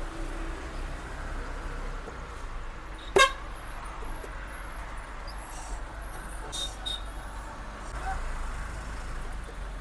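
A vehicle horn toots once, briefly, about three seconds in, over the steady low running noise inside the Tata Ultra 15.18 truck's cab.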